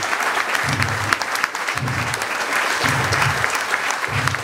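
Crowd applauding, a dense crackle of clapping, with a low beat repeating about once a second underneath.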